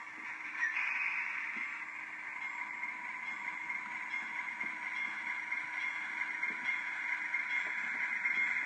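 HO-scale model Alco diesel locomotive's sound decoder playing a steady diesel engine running sound through its small onboard speaker, thin and hissy. It gets a little louder about a second in.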